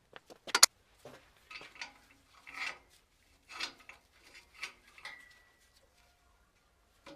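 Irregular clicks, knocks and scraping of hard parts, with one sharp click just under a second in. A faint steady tone sounds briefly about five seconds in.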